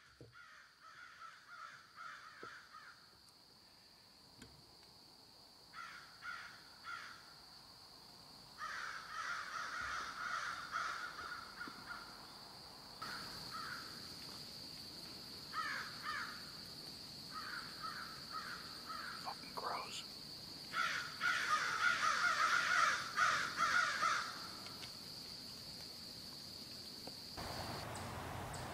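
Crows cawing repeatedly in bouts of harsh calls, most intense about three quarters of the way through. Underneath runs a steady thin high-pitched tone, which stops shortly before the end.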